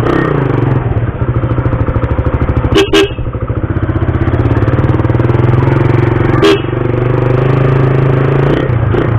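Suzuki Raider 150's single-cylinder four-stroke engine running with a steady, even pulse while riding. A horn beeps briefly twice, about three seconds in and again about six and a half seconds in.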